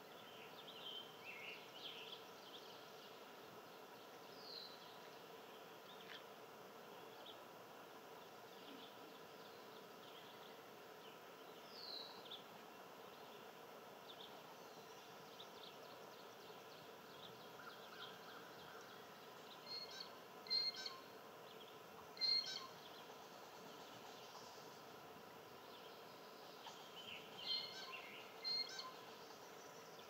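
Wild birds calling outdoors: a few soft, short falling whistles, then sharper high chirps in small clusters, loudest just past the middle and again near the end, over a faint steady hum.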